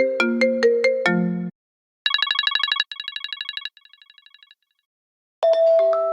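iPhone iOS 15 ringtones playing in turn. First the end of a fast run of melodic notes, then a rapid electronic trill repeated three times and fading with each repeat, then near the end a bell-like chime of a few notes left ringing.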